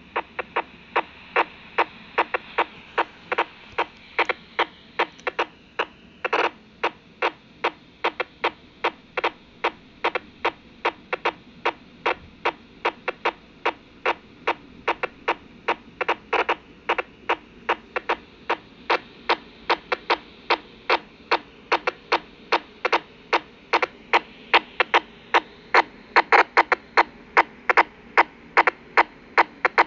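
Unidentified signal received by a BaoFeng UV-5R handheld radio on 422.870 MHz, played through its speaker as a regular train of short, sharp clicking pulses, about three a second, over steady static hiss.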